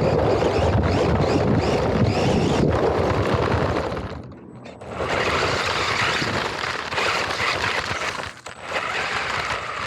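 RC car driving over dirt, heard from a camera mounted on the car: heavy wind rumble and tyre and gravel noise. The noise drops briefly about four and a half seconds in, then returns with a thin, steady high whine over it.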